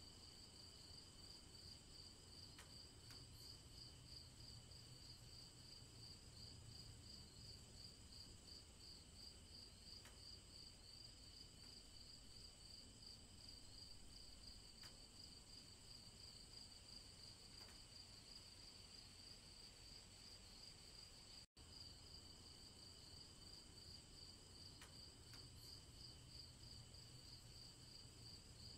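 Crickets chirping in a faint, steady, rapid pulsing trill, with fainter even tones above and below it. The sound cuts out for an instant about two-thirds of the way through.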